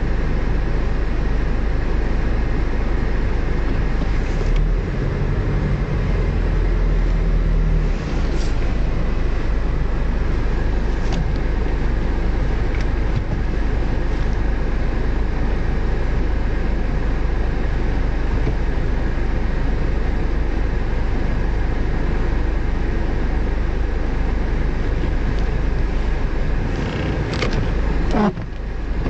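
Car on the move: steady engine and road noise. Near the end the sound falls in pitch and briefly dips.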